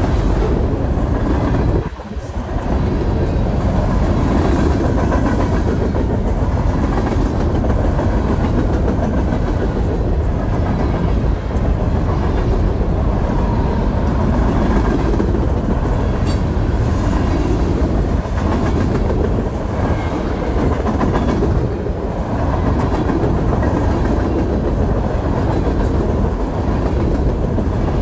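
Norfolk Southern freight train's open-top high-side cars rolling past at speed, a steady heavy rumble of steel wheels on rail. It dips briefly about two seconds in.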